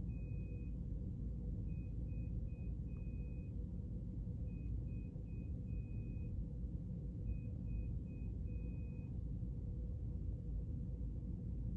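Steady low room hum with faint electronic beeping: three short beeps and one longer beep, the group repeating about every three seconds, stopping about nine seconds in.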